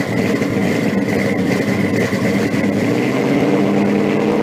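A car engine idling with a steady rumble, a little stronger near the end.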